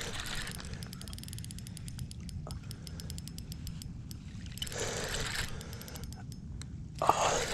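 Fishing reel clicking rapidly as line is wound in, a fast even run of ratchet-like clicks that stops about three seconds in. Two short bursts of noise follow, about five and seven seconds in.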